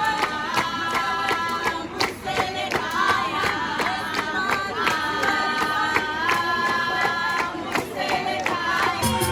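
A group of voices singing together in harmony, holding long notes, with crowd noise and scattered claps. Near the end a bass-heavy music track comes in.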